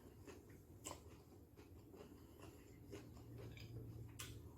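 Near silence with faint chewing and mouth sounds, with a couple of sharp clicks about a second in and near the end.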